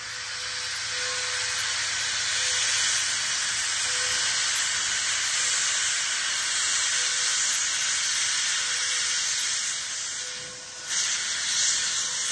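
Great Western No. 60, a 2-8-0 steam locomotive, venting steam in a loud, steady hiss. The hiss drops off briefly near the end, then comes back.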